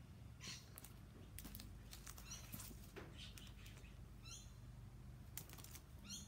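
Faint crinkling and rustling of plastic sticker-sheet packets being handled, in short scattered bursts over a faint low hum.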